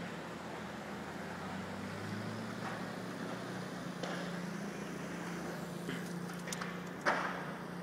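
Traffic noise with a steady low engine hum, and a sharp knock about seven seconds in.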